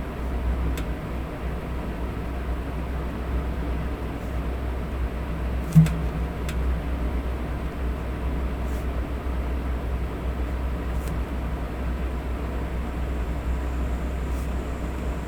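Electric fan running steadily: a low hum under an even hiss. A few faint light clicks and one short, louder thump about six seconds in sound over it.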